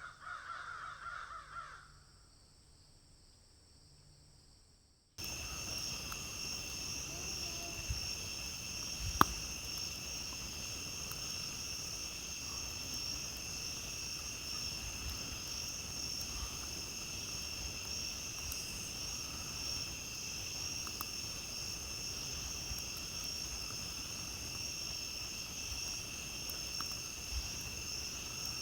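A crow caws in the first two seconds. After a short quiet gap, a steady chorus of crickets starts abruptly about five seconds in and carries on, with a single sharp pop about nine seconds in.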